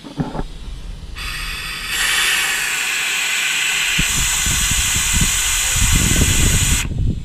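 Compressed air hissing from an air line, turned on about a second in and shut off abruptly shortly before the end.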